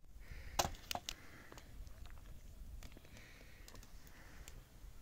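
Sticks and twigs clicking and snapping at a small wood fire being laid and tended. A few sharp snaps come in the first second and a half, then fainter scattered ticks.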